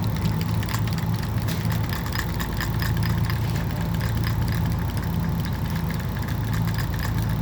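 Fishing boat's engine idling with a steady low hum, with light clicking over it.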